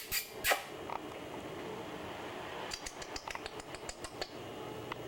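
Light clicks and taps: a couple right at the start, then a quick run of about a dozen over a second and a half in the middle, over a steady hiss.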